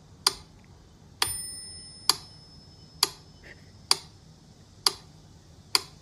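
Steady, even ticking, one sharp tick a little under every second, with a bright bell-like ding on one beat about a second in that rings out and fades over about a second.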